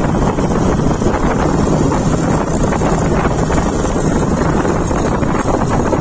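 Motorcycle riding along at a steady pace: wind buffeting the microphone over the engine's running drone, with no change through the stretch.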